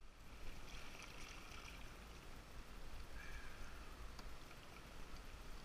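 River current rushing and gurgling past a canoe's bow in a shallow riffle, with a steady low rumble underneath.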